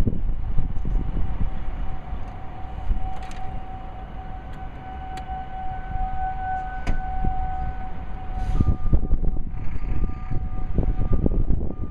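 Distant Federal Signal outdoor warning sirens sounding during a test, heard as steady, overlapping wailing tones that shift partway through as another siren's tone comes in. Heavy low wind rumble on the microphone lies underneath and grows louder near the end.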